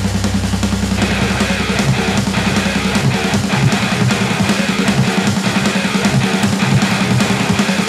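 Heavy metal music: fast, steady drumming with distorted electric guitar, the full band coming in about a second in.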